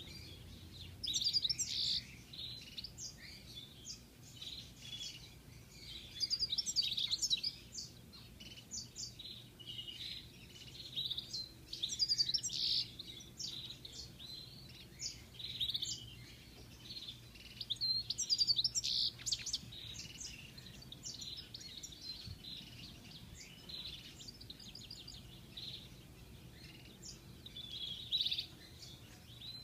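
European goldfinch singing: phrases of quick, high twittering and tinkling notes a few seconds long, with short pauses between them, some phrases louder than others.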